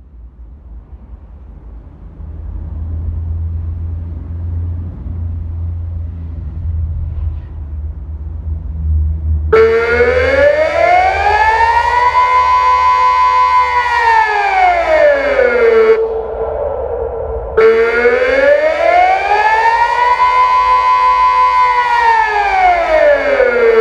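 Delta 6 civil-defence siren sounding the Austrian 'Alarm' signal during the nationwide siren test: a loud wailing tone that starts about ten seconds in and glides slowly up and down, rising and falling twice. Before it starts there is only a low rumble.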